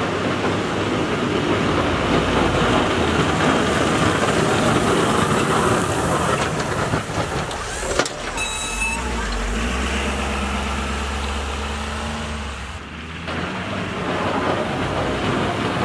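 2012 Ford F350 with the 6.7 Power Stroke diesel plowing a lot: a steady rush of engine and road noise as it works toward the camera. About halfway through it passes close by, and the diesel's low, even hum takes over. Near the end the sound dips briefly, then the rushing noise returns.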